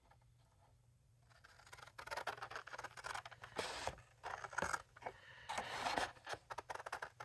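Cardstock being handled and worked at a craft table: quiet at first, then from about two seconds in irregular paper rustling and scraping with a few sharp clicks.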